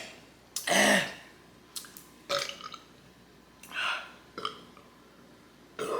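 A woman burps loudly about a second in, followed by several shorter, quieter sounds.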